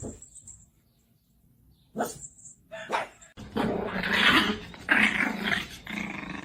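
A dog barking a few times, then growling for about three seconds near the end.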